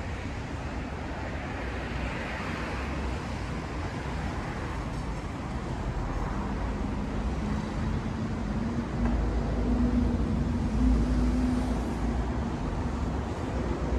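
Street traffic noise, with a vehicle engine passing close by and growing louder in the second half before easing off near the end.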